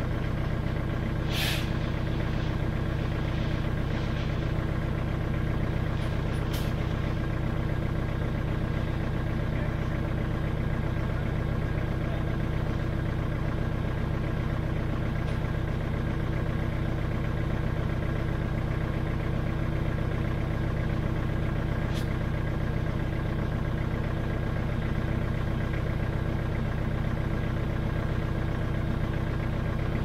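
Engine of a Lesnik-Master tracked all-terrain vehicle running steadily at idle, its pitch unchanging, with a few brief clicks or knocks over it.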